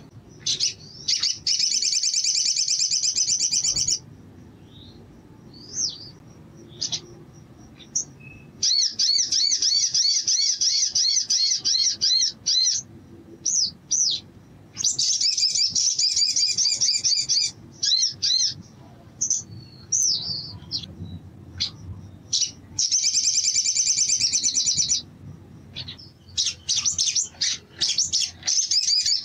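Male olive-backed sunbird singing in a cage: five long, fast, high trills of about two to four seconds each, with short sharp chirps in the gaps between them.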